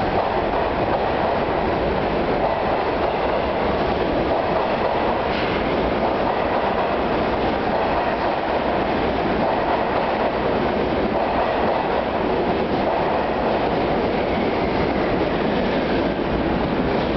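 Kawasaki-built R62 subway cars of a 3 train pulling out of the station past the platform, wheels and running gear on the rails making a loud, steady rumble. The rear car passes near the end.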